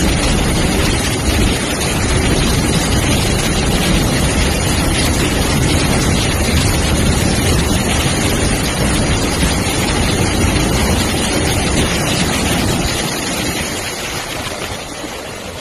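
Freight train running through floodwater over the tracks: a loud, steady rush of churned, spraying water over the train's low rumble, fading near the end.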